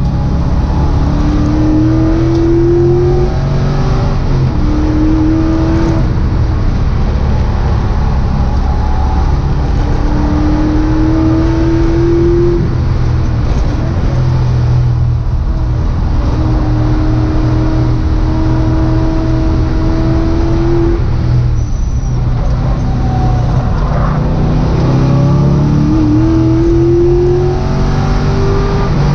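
LS V8 engine of a Mazda Miata race car, heard from inside the cockpit at speed on a circuit. The engine note climbs in pitch in several long pulls, broken by short drops, with one long steady stretch about halfway through.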